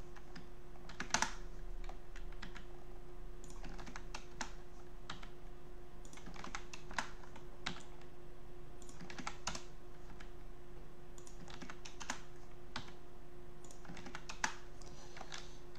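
Irregular clicking of a computer keyboard and mouse during CAD work, a few clicks louder than the rest, over a steady low hum.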